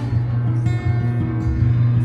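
Music with held notes over a steady, heavy bass.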